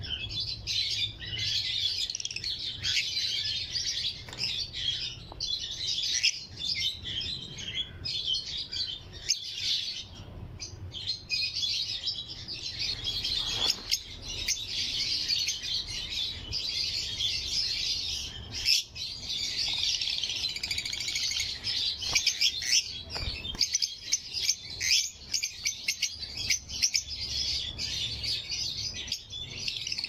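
A flock of caged lovebirds chirping and chattering without a break, many high, rapid calls overlapping, with a short lull about ten seconds in.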